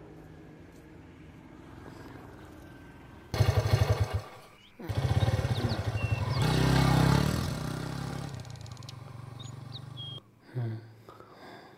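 Motorcycle engine starting up a few seconds in with rapid firing pulses, dropping out briefly, then running and revving, loudest in the middle, before cutting off suddenly about ten seconds in.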